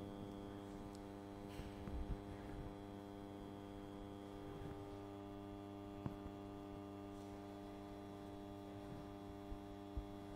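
Steady electrical mains hum, a low buzz with a stack of evenly spaced overtones, and a few faint clicks along the way.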